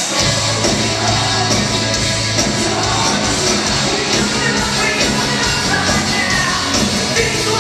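Rock band playing live: distorted electric guitars, bass and drums come in together right at the start, with sung and yelled vocals over them.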